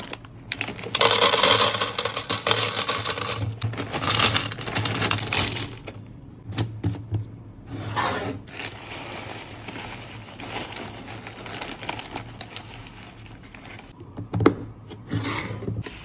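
Kitchen items being handled during restocking: rustling and scraping of packaging or contents, scattered clicks, and a sharp knock about fourteen and a half seconds in.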